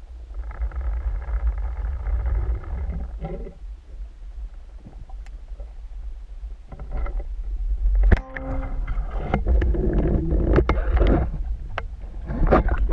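Underwater sound from a speargun-mounted camera: a steady low rumble, a buzzing drone for a couple of seconds near the start, then a sharp knock about two-thirds of the way in, followed by thicker clicking and bubbling as the diver nears the surface.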